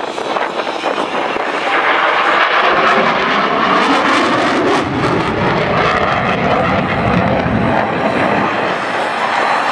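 An aircraft flying past with loud, continuous engine noise that builds after the first couple of seconds and stays strong through the rest.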